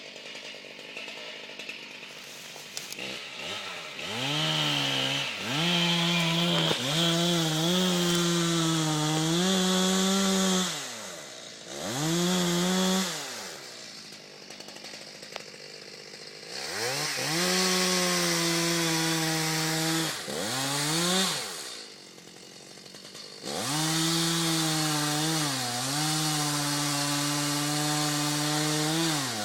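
Two-stroke chainsaw revving up to full speed and falling back to idle four times, holding a high steady note for several seconds in each burst, as it cuts into a tree being felled.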